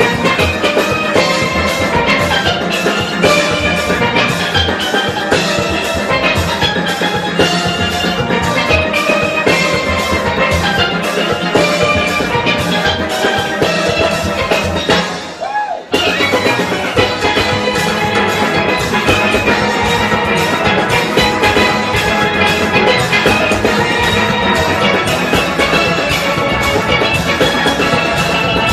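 A full steel band playing: many steel pans carrying the melody and chords over bass pans and a drum kit. The band drops out for a moment about halfway through, then comes back in together.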